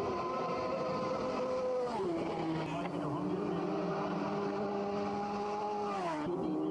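Racing motorcycle engine running at high revs, its pitch held steady and then dropping sharply twice, about two seconds in and again near the end.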